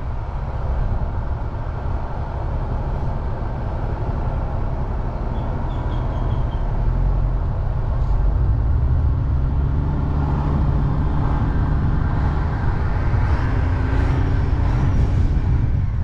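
A vehicle running steadily, with a heavy low rumble that gets a little louder about halfway through.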